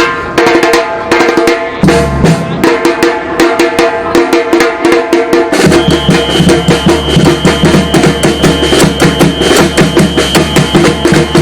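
Drum orchestra playing a fast, driving rhythm of dense drum strokes. About halfway through, heavier bass drums come in, with a steady high tone held over them.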